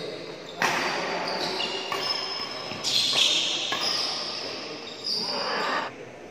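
A badminton doubles rally in a large hall: a quick run of sharp racket hits on the shuttlecock mixed with shoes squeaking and stamping on the court floor, each hit echoing.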